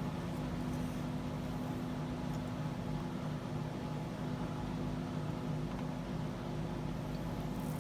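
Whole-house fan running: a steady, even hum with a low tone.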